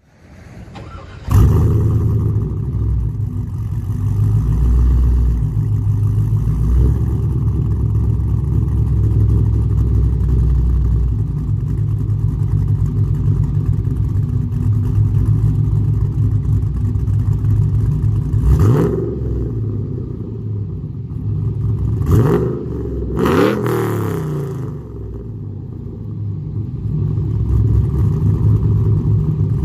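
LS1 V8 in a Pontiac Firebird running through Speed Engineering 1-7/8-inch stainless long-tube headers and a 3-inch stainless true dual exhaust, heard from behind the quad tips. It idles steadily, and about two-thirds of the way through the throttle is blipped three times in quick succession.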